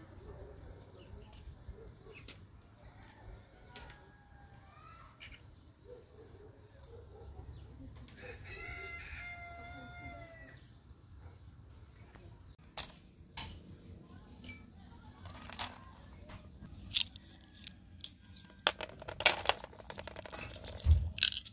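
A rooster crows once, a single call of about two seconds, with faint chicken clucking before it. Later, sharp irregular cracks and crackles of walnut shells being broken apart by hand, the loudest near the end.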